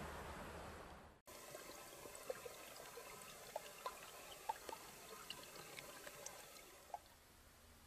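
A steady rushing hiss fades out in the first second. After an abrupt cut, water drips and trickles faintly, with many small irregular plinks of drops.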